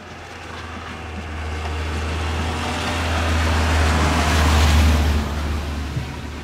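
A Rhaetian Railway electric train approaching on snow-covered track: a low rumble and rushing noise that grows louder to a peak about five seconds in, then eases slightly.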